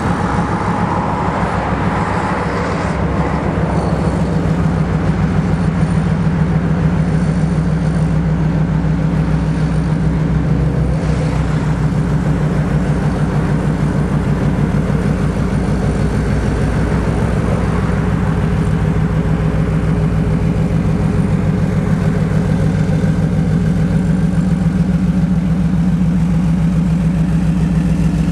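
Soviet-built M62 diesel locomotive's two-stroke V12 diesel engine running steadily with a deep, evenly pulsing throb as the locomotive moves slowly at low power. It grows a little louder a few seconds in as the locomotive comes closer.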